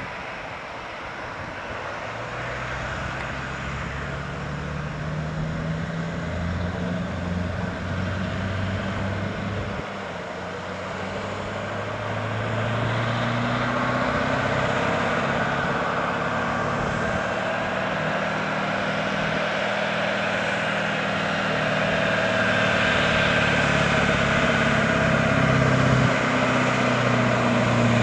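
Scania 4-series V8 diesel truck pulling a heavy oversize-load trailer, its engine working under load. The engine note steps up and down in pitch several times and grows steadily louder as the truck approaches.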